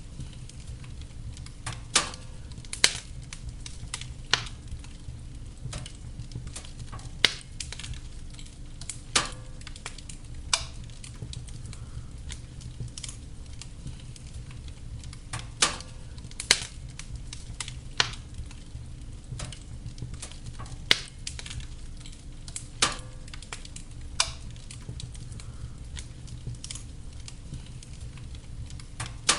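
Wood fire burning in a fireplace: a steady low rumble of flames with irregular sharp crackles and pops from the burning logs, about a dozen loud ones scattered through.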